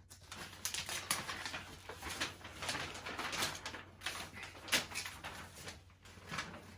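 Paper rustling and crinkling in quick, irregular bursts as a folded paper installation template is handled and unfolded, over a steady low hum.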